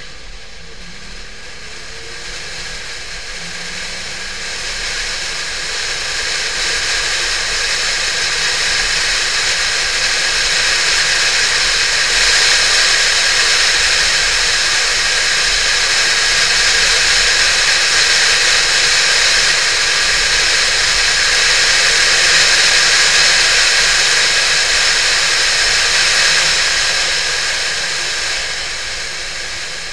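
Air and road rush over a camera mounted on the front bonnet of a Porsche 911 (996) driving at speed: a steady, even hiss that builds over the first ten seconds or so as the car gathers speed, holds, then eases off near the end.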